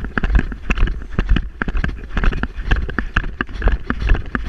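Dog-vest-mounted GoPro jolting and rubbing with each stride of a moving dog, about three to four knocks a second over a deep rumble of handling noise.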